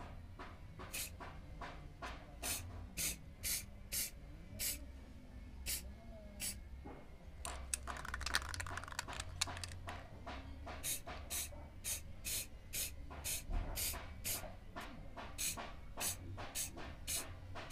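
Aerosol spray can sprayed in many short, quick bursts, roughly two a second, coating a hanging brass candle holder, with a denser run of spraying a little before halfway.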